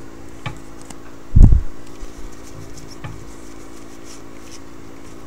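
A stack of 2012 Topps football trading cards being handled and flipped through by hand: faint card clicks and slides, with one loud low thump about a second and a half in.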